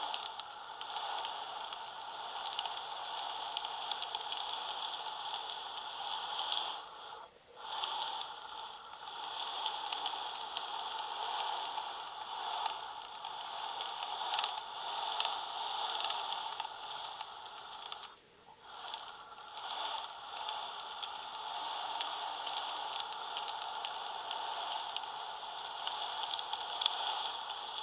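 2021 Tesla Model Y's electric power steering rack, heard through a clip-on contact pickup on its housing: a continuous clicking noise like the ball in a paint can, which drops out briefly twice, about 7 and 18 seconds in. The owner takes the clicking felt in the steering wheel to come from the rack.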